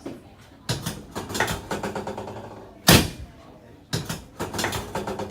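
Sounds of a chiropractic adjustment: one loud, sharp thump about three seconds in, between two runs of rapid clicking and knocking.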